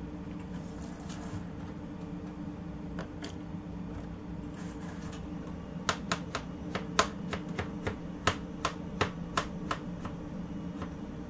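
Knife chopping on a cutting board: about a dozen sharp strokes, two to three a second, starting about halfway through and stopping near the end, over a steady low hum.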